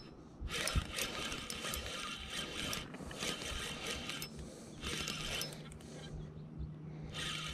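Spinning reel being cranked to retrieve line, its gears whirring in several short spells that stop and start, with a pause of a couple of seconds near the end.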